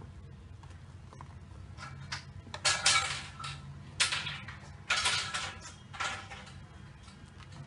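Silicone spatula scraping and swishing through whipped cream against the sides of a bowl while folding in avocado purée: a run of short scrapes about once a second, starting a couple of seconds in, over a faint low steady hum.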